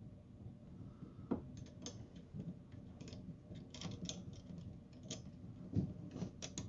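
Faint, irregular clicking and light tapping of small wiper-arm parts being handled and tried for fit, with a louder knock about a second in and another near the end.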